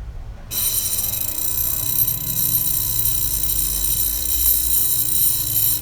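Small nipper-sharpening grinder running with a steady high-pitched whine over a low hum, starting suddenly about half a second in and cutting off near the end.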